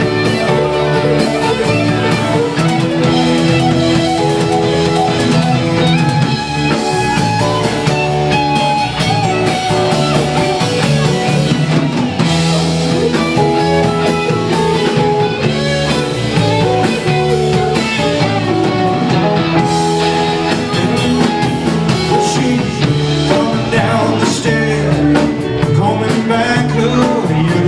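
A live rock band playing amplified in a club: strummed acoustic-electric guitar, electric guitar, bass guitar and a drum kit keeping a steady beat.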